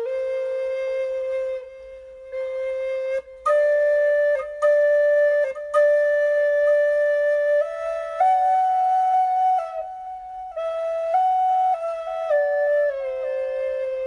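Solo flute playing a slow melody of long held notes, with short gaps between phrases. The tune climbs to its highest notes in the middle and steps back down near the end.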